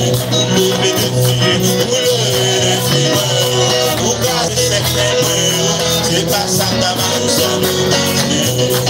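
Live church worship band playing upbeat music, with electric guitar, keyboard and percussion over a steady beat, and a voice singing over it.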